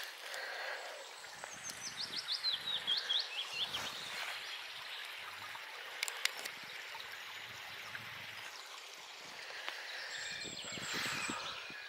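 Birdsong in the open air: a small songbird sings a quick run of falling chirps, about two seconds long, starting near a second and a half in, over a steady outdoor hiss.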